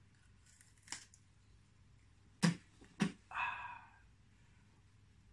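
A few sharp clicks and knocks as a charred, smoking wooden stick is bitten and handled. The two loudest come about half a second apart a couple of seconds in, followed by a short breathy puff.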